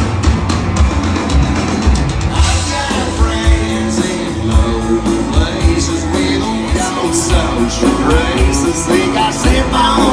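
Rock song with singing, guitar and a steady drum beat.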